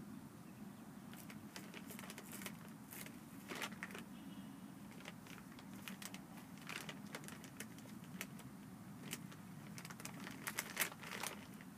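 A miniature schnauzer puppy nosing and chewing at a plastic dog-food bag: irregular crinkles and small clicks over a low steady hum.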